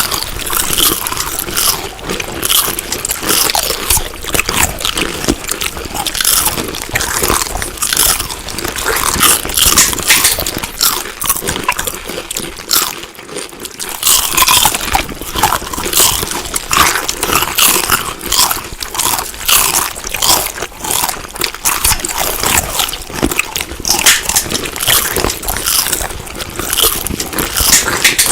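Crunchy food being bitten and chewed close up: a dense run of loud crunches, easing briefly about halfway through.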